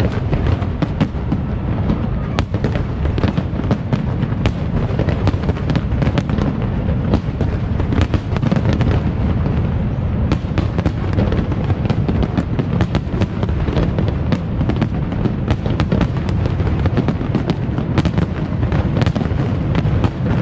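Large aerial fireworks display, shells bursting in quick succession: many overlapping bangs and crackles with no let-up.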